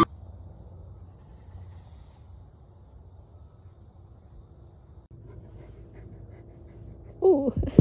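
Crickets chirring steadily, a faint high-pitched outdoor drone. About seven seconds in, a tortoiseshell cat meows loudly, two short calls that rise and fall in pitch.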